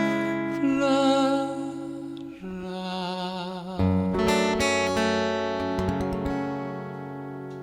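Live acoustic guitar strumming the closing chords of a song, with a voice holding notes with vibrato over it. The last chord, struck about four seconds in, rings out and fades.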